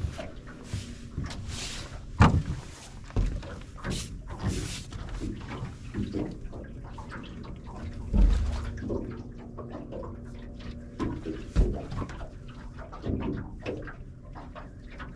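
Irregular knocks and thumps on a fishing boat, with short bursts of hiss in the first few seconds and one heavy low thump about eight seconds in.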